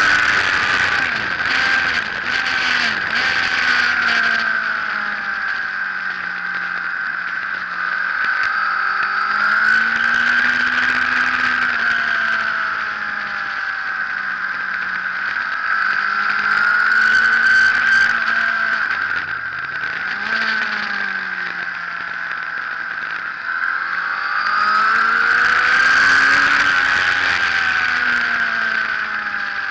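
Sports motorcycle engine heard from on board at racing speed, its revs rising and falling over and over as the rider accelerates and brakes around the circuit, with a quick drop and blip of the revs about two-thirds of the way through.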